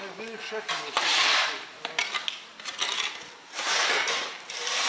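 Metallic clinking and scraping of scrap being handled, with hazy rustling strokes about a second long, twice, and a few sharp clicks in between.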